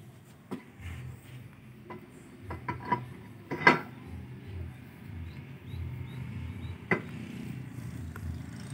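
Scattered sharp metal clinks and knocks of tools and parts being handled on a motor scooter's rear wheel, the loudest a little past three and a half seconds in, over a low uneven rumble.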